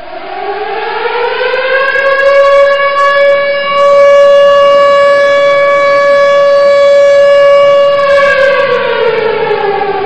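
A siren winds up in pitch over the first two seconds or so and holds one steady, loud tone. About eight seconds in it starts to wind down again.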